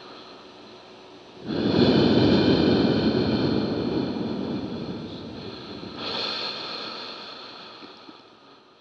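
Ambient electronic soundtrack: a sustained high drone with a rushing noise swell that comes in suddenly about one and a half seconds in and slowly dies away, a second smaller swell near six seconds, and a fade-out near the end.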